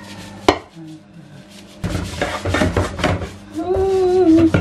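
Washing up in a kitchen sink: a soapy bottle brush and hands scrub a non-stick frying pan, with a sharp knock about half a second in, then a dense run of scraping and splashing from about two seconds on. Near the end a pitched tone is held for about a second.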